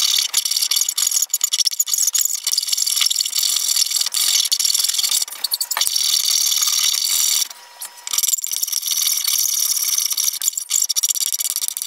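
Flat file rasping back and forth across the edge of a wooden hand saw handle blank, shaping its curves, with a short pause about two-thirds of the way through.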